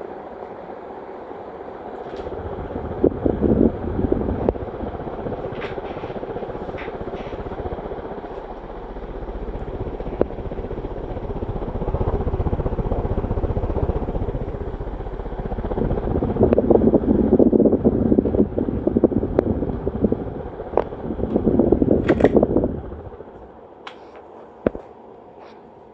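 Hunter Low Profile 52-inch ceiling fan running with a steady low hum that grows louder in steps, with rattling spells mixed in. The sound drops away sharply near the end.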